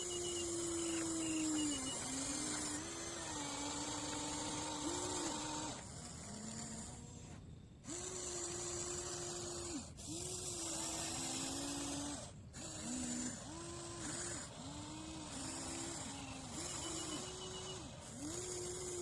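RC excavator's motors whining in repeated spells of a second or two, each one gliding up in pitch as it starts and dropping away as it stops, as the machine's functions are worked.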